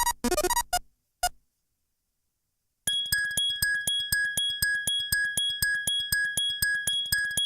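The tail of one synthesized Android phone ringtone, a single short blip, a pause of about two seconds, then the next ringtone starts: a quick run of short electronic beeps over a steady high tone.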